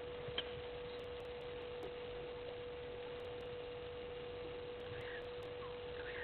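A steady, even hum held at one pitch, with a few faint short bird calls behind it and a single sharp click about half a second in.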